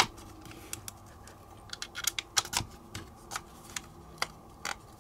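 Small sharp clicks and taps of a Ruger PC9 Carbine's trigger group being handled and seated into the receiver, scattered through, with several close together about two seconds in.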